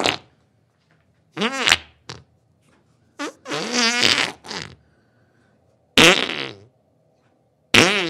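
Diarrhea fart sounds: a series of separate bursts of varying length, some sputtering with a wavering, falling pitch and one noisier and spraying about 6 s in.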